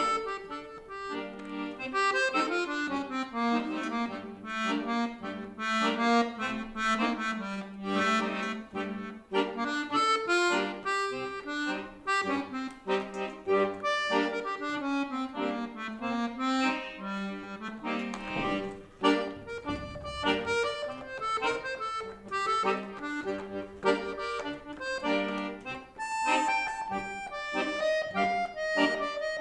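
Accordion playing solo: a melody of shifting notes over held lower chords.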